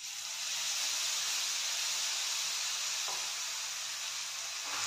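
Marinated whole pomfret sizzling in hot oil in a frying pan. The steady hiss of shallow frying starts suddenly as the fish goes in and then holds even.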